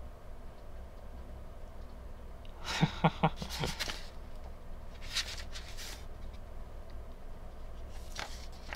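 A paperback manga volume being handled: short bursts of paper rustling and light taps about three seconds in, again around five seconds and near the end, over a low steady hum.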